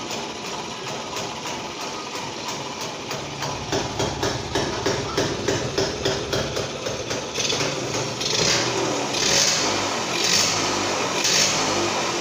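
Hand-tool work on a motorcycle engine. It starts as a fast, even clicking or tapping, about five a second, and from about eight seconds in gives way to rasping strokes about once a second.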